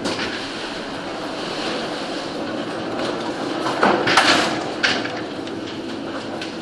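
Steady mechanical rumble of a moving vehicle with a faint rattle, broken by a burst of clattering knocks about four seconds in.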